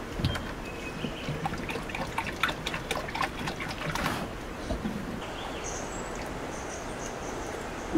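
Water poured from a plastic jerrycan into a metal pan, splashing and trickling; the pouring stops about four seconds in, leaving a quieter background.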